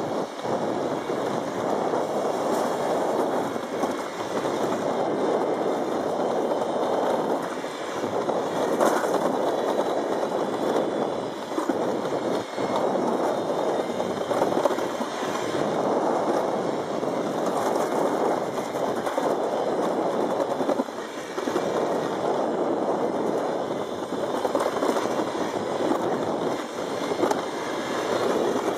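Summer toboggan sled running down a metal trough track: a steady rolling noise that swells and dips with the ride's speed and curves.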